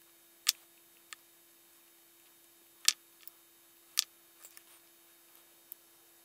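Small metal clicks and taps as tiny brass screws are fitted into a model steam engine's aluminium cylinder cover with a screwdriver: three sharp clicks, with a few fainter ticks between them.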